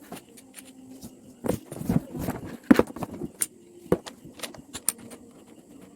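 Irregular clicks, knocks and light rattles of hard parts being handled and unpacked, loudest a little under halfway through.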